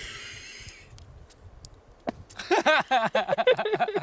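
A breathy hiss-like exhale, then a person's voice in rapid, wobbling bursts without words, like laughter, from about two seconds in.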